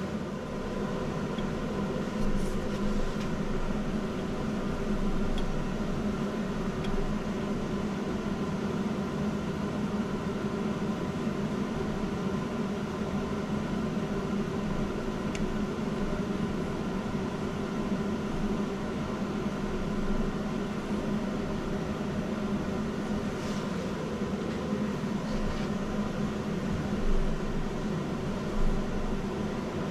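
Steady mechanical hum with a few steady tones, with a handful of faint knocks.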